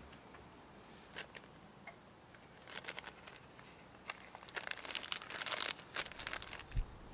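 Crinkling and rustling handling noises with scattered light clicks, busiest about three seconds in and again around five seconds in, then a low knock near the end.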